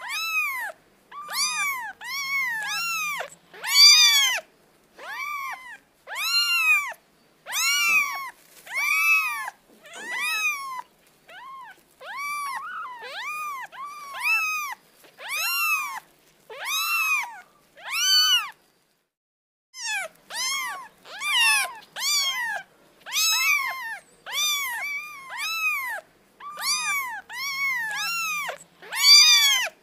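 Kitten meowing over and over: short, high calls that rise and fall in pitch, about one or two a second, with a pause of about a second some two-thirds of the way through.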